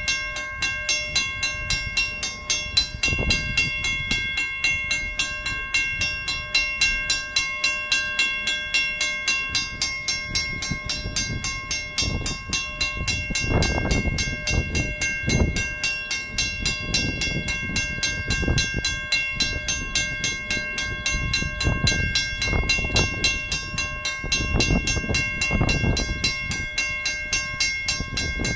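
WCH mechanical crossing bell ringing with steady, evenly spaced strokes, while the freight cars standing in the crossing creep along slowly with low rumbles, strongest about halfway through and again near the end.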